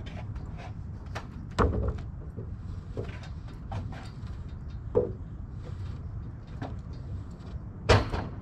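Wooden 2x12 lumber being handled and set in place: scattered light knocks and clicks, with louder thuds about a second and a half, five and eight seconds in, the last the loudest.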